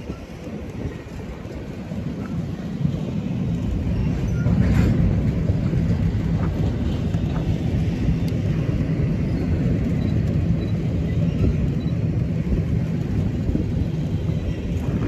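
Norfolk Southern freight train rolling past, a steady low rumble that builds over the first few seconds and then holds, with a few faint clicks from the wheels and cars.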